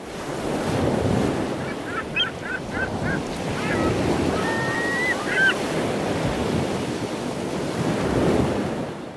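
Waves washing on a shore, swelling and easing, with a quick run of about five short chirps about two seconds in and a brief whistle and more chirps near the middle.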